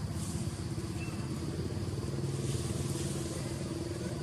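An engine running steadily at a low, even pitch, with a faint hiss above it.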